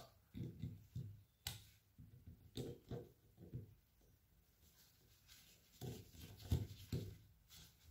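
Faint handling sounds of a screwdriver hand-tightening the screws of an air rifle's trigger plate: a few scattered sharp clicks and soft low knocks.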